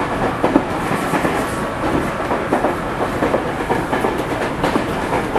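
Fujikyu 6000 series electric train, a converted JR East 205 series, running along the line, with a steady rumble of wheels on rail and irregular clacks over the rail joints.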